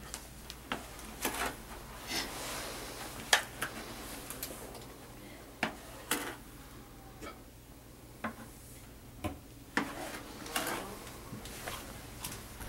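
Sand being scooped out of a plastic bucket and poured into the load bucket hung from a model bridge: irregular knocks and scrapes of the scoop against the plastic buckets, with short rustling pours of sand.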